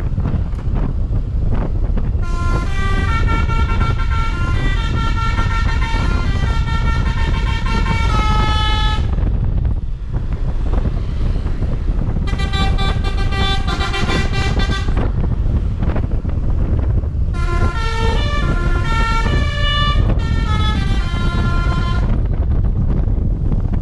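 Basuri V3 telolet bus horn playing quick multi-note melodies in several separate bursts: a long tune about two seconds in, a shorter one around twelve seconds, another around seventeen seconds, and a new one starting near the end.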